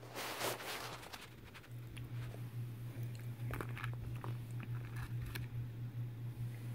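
Foil wrapper crinkling and a hollow chocolate egg's shell cracking as fingers break it open: a burst of crinkling in the first second, then scattered small cracks and crackles, over a steady low hum.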